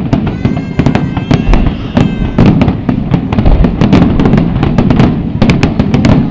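Fireworks bursting in quick succession: a dense run of bangs and crackles over a steady low rumble, with a high whistle in the first two seconds.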